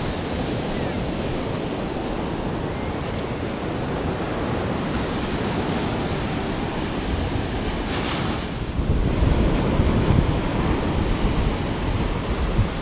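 Ocean surf washing up the beach, with wind buffeting the microphone; the wind gusts grow heavier and more uneven in the last few seconds.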